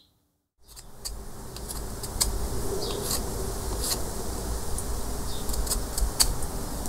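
Outdoor ambience starting about half a second in: a steady insect-like buzz over a low rumble. Scattered light clicks and scrapes come from a steel knife blade worked along a wooden paddle.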